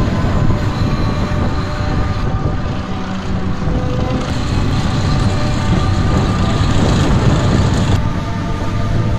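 Heavy multi-axle military trucks' diesel engines rumbling steadily as a convoy drives over rough dirt tracks.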